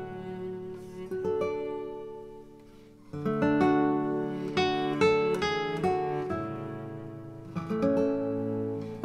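Background music on acoustic guitar, plucked notes ringing and fading. It thins out about three seconds in, then comes back louder with fuller chords.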